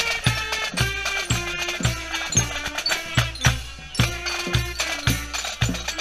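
Scout marching band playing on the march: drums keep a steady beat of about two strokes a second, with held melody notes over them.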